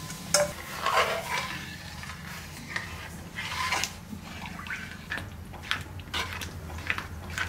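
Ragi (finger millet) batter poured into boiling water in an aluminium kadai while a metal spoon stirs it: liquid sloshing, with irregular clicks and scrapes of the spoon against the pan.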